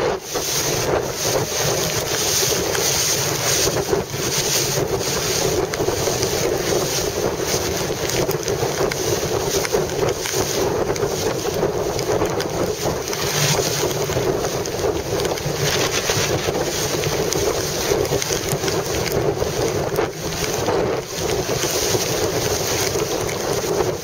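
Strong wind buffeting the microphone in a loud, steady rush broken by frequent gusty blasts, over the rush and slap of choppy water.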